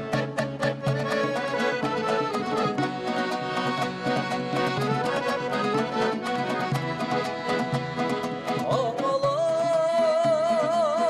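Kazakh folk music played on accordion over a steady beat of drum strokes. About eight and a half seconds in, a held, wavering melodic note comes in over the top.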